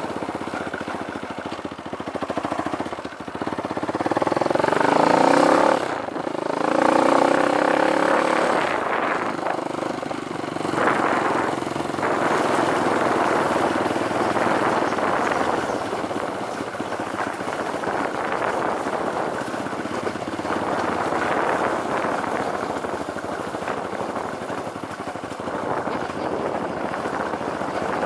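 Dirt bike engine under the rider, twice climbing in pitch as it accelerates a few seconds in, with a sudden drop between the climbs, then running at a steadier pace.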